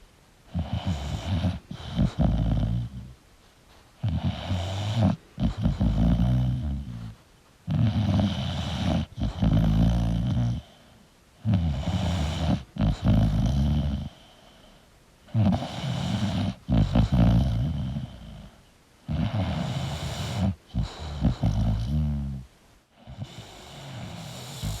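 English bulldog snoring in its sleep: a low, fluttering snore on each breath, about seven in a row, each lasting two to three seconds with a short quiet pause between.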